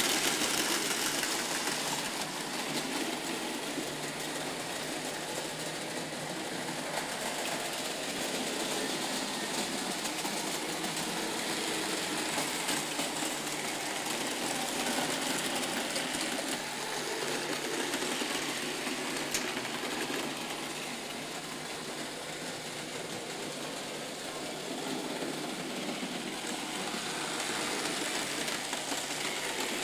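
Märklin model trains running on the layout's metal track: a steady mechanical whir from the locomotives' small electric motors and wheels.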